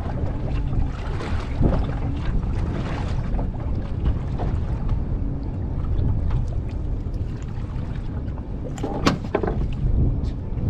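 Steady low rumble of wind on the microphone and water against a small boat, with scattered faint clicks and one sharp click about nine seconds in.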